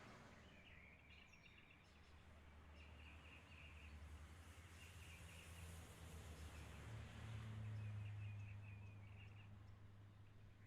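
Faint songbird chirping in short trills, several times, over a low steady hum that swells about seven seconds in.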